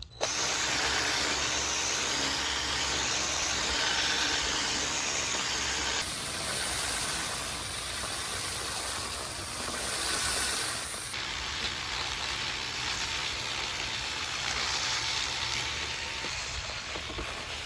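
Cordless power tools sanding charred wood: a drill spinning a Sandoflex flap-brush sanding wheel and an angle grinder with a sanding disc, running steadily with the abrasive rubbing on the wood. The sound changes abruptly twice, about six and eleven seconds in.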